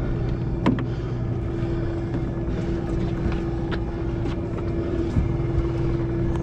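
Steady hum of the sportfishing boat's engine running, with a few short clicks over it.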